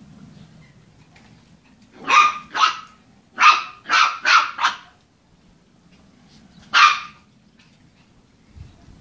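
A dog barks seven times in short, sharp barks: two about two seconds in, then a quick run of four, then one more near the end.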